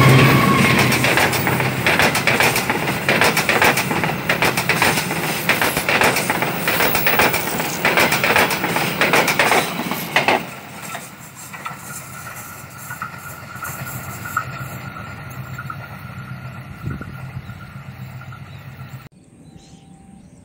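Passenger train passing close by, its wheels clattering rapidly over the rail joints for about ten seconds, then fading quickly as the last cars go by.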